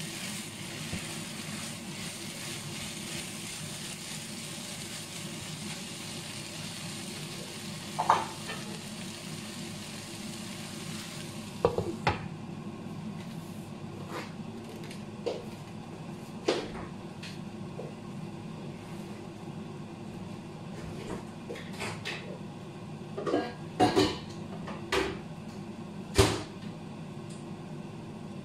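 Bitter melon and egg sizzling in a frying pan while being stirred with a spatula, with a few sharp knocks. About twelve seconds in, a glass lid goes on and the sizzle turns duller, with scattered sharp clicks and pops under the lid.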